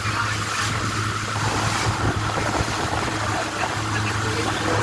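Motorboat engine running at a steady speed with a constant low hum, over the broad rushing hiss of churning wake water and wind.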